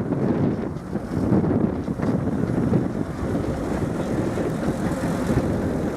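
Miniature railway train running, a steady low rumble, with wind buffeting the microphone.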